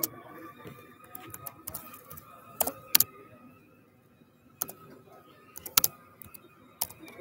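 Irregular clicking and tapping on a laptop keyboard, a few taps much louder than the rest, picked up close by the computer's own microphone.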